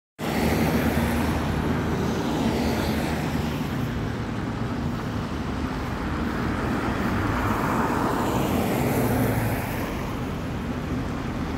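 Volgabus 4298.G4 city bus heard from inside the cabin while under way: steady engine hum and road noise, with a whine that swells and fades about two-thirds of the way through.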